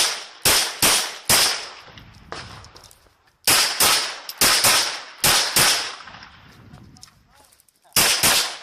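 Rapid pistol fire from a 9mm Glock 34 during a timed practice-match stage: sharp cracks fired mostly in quick pairs, with short pauses between strings as the shooter moves to new targets.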